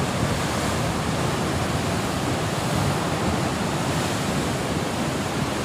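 Sea surf washing against a rocky shore below: a steady rush of breaking waves and foam.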